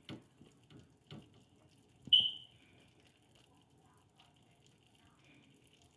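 Kitchen handling sounds: a few soft knocks, then about two seconds in one sharp clink that rings briefly.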